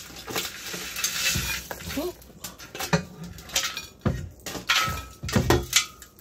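Caramel corn being tipped and scraped out of a speckled enamel roasting pan into a popcorn bowl: a rasping scrape for about the first two seconds, then a series of knocks and clatters as the pan is worked over the bowl and lifted away.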